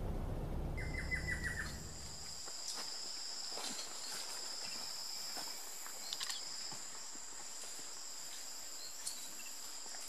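Steady high-pitched insect drone held on two pitches, with a quick run of about six bird notes just after it starts. A low rumble underneath stops a couple of seconds in.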